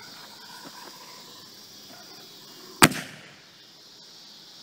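A consumer firework mortar's lift charge firing a ball shell: one sharp, loud boom about three seconds in, with a short echo after it.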